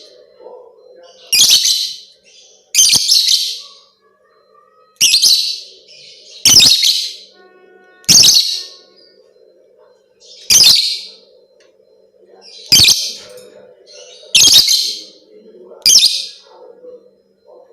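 Lovebird giving loud, shrill chattering calls in short bursts, about nine of them, one every one and a half to two seconds, over a faint steady hum.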